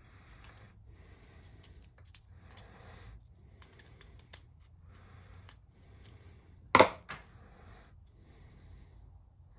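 Handling noise from a screwdriver working the screw terminals of a small plastic circuit breaker: faint scraping and light clicks, with one sharp knock just before seven seconds in.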